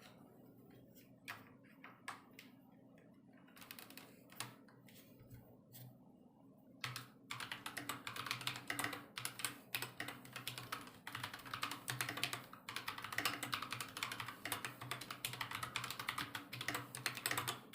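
AKKO 5108S mechanical keyboard being typed on: a few scattered keystrokes at first, then fast, continuous typing from about seven seconds in.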